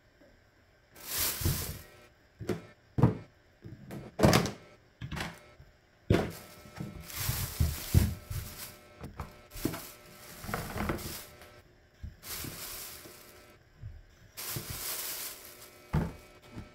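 Thin plastic bags rustling and crinkling in irregular bursts as vegetables are handled, with soft knocks as they are set down in a plastic storage container.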